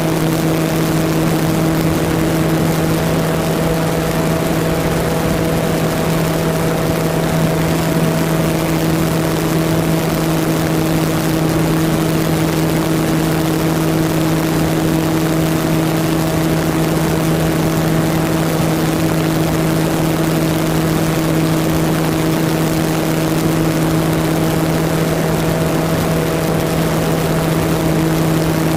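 Motor and propeller of an RC model airplane running at a steady speed, heard from a camera on board the model: a constant hum over an even rushing noise of airflow.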